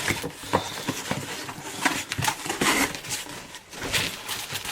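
Packaging being rummaged through in an opened shipping box: irregular rustles, scrapes and small knocks as items are pulled out.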